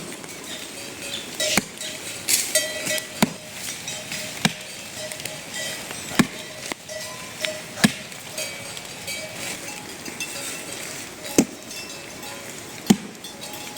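Repeated sharp chopping strikes, about one every second and a half, like a blade biting into wood.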